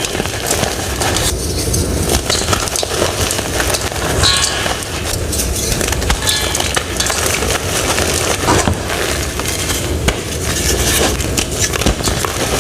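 Close-up ASMR crunching: a crisp material being crushed and squeezed, a dense, continuous crackle of many small cracks. A few brief high chime-like tones come in now and then.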